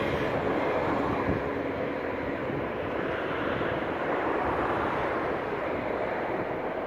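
Electric commuter train rolling across a railway bridge, a steady rumble that slowly fades as the train pulls away.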